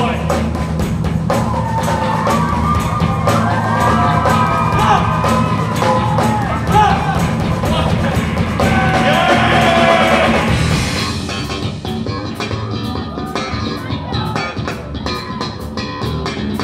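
Live rock band playing: a male lead vocal over electric guitars, bass and drums. The singing stops about two-thirds of the way through and the band plays on a little more quietly.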